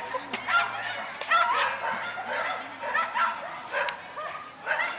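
A dog barking over and over in short, high yaps, about two a second.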